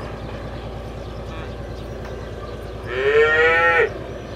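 Air horn of a D1-type diesel multiple unit sounding one blast of about a second near the end. Its pitch rises at the onset, then holds steady before cutting off sharply. Under it runs the steady low throb of the train's diesel engine.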